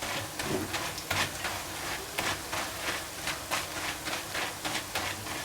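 Boondi frying in hot oil, sizzling while being stirred continuously, with a spoon repeatedly knocking and scraping against the pan.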